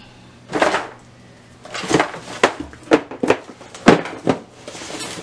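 Shoes and cardboard shoe boxes being handled: a brief rustle, then a run of sharp knocks and clicks with rustling in between as boxes and shoes are moved about.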